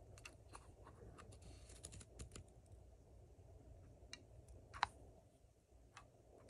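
Faint, scattered small clicks from a Wheeler F.A.T. Wrench torque screwdriver being handled as its adjustment collar is turned to set 15 inch-pounds. The clicks come in a quick run at first, then sparser, with one sharper click just under five seconds in.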